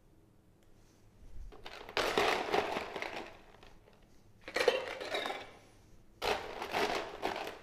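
Ice cubes scooped and tipped into a glass mixing glass, rattling and clattering in three separate pours, the ice for stirring the drink.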